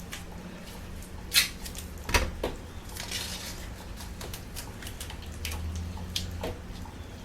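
Painter's tape being peeled off a camper trailer's roof: scattered light clicks and taps, with a short rustling peel about three seconds in, over a steady low hum.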